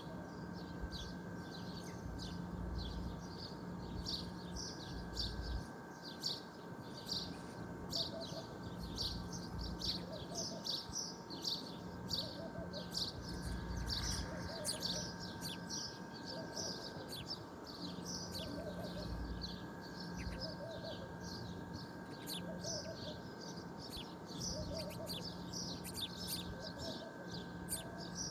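Many small birds chirping and twittering together in a dense, continuous chorus. From about a third of the way in, a lower short call repeats every second or two, over a faint steady hum.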